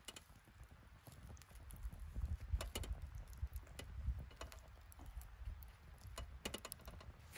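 Scattered sharp crackles and pops from a campfire cooking setup, with a pan of olive-oil ajillo simmering on a grill over burning embers, over a low steady rumble.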